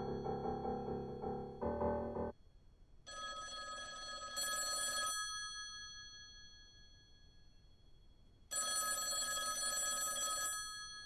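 Background music ends about two seconds in, then a telephone rings twice, each ring lasting about two seconds, with a pause of several seconds between them.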